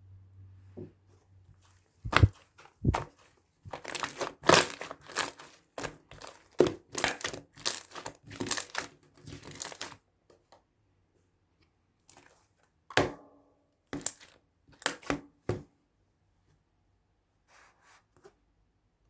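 Crumpling and tearing of a thin material, in dense clusters of short crackly noises, with a pause after about ten seconds and a shorter flurry after it.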